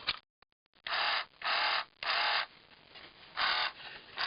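The 1978 Kenner TIE Fighter toy's sound effect: its small 3-volt motor spins a gear against a clear plastic strip, giving a raspy buzzing burst each time the sound-effects button is pressed. There are four bursts of about half a second each, the last one after a short pause.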